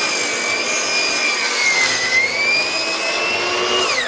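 Hitachi dual compound miter saw running at full speed, a steady high whine that sags in pitch about two seconds in as the blade bites through a wooden 2x4 on a 45-degree cut. Near the end the trigger is released and the whine starts to fall as the motor winds down.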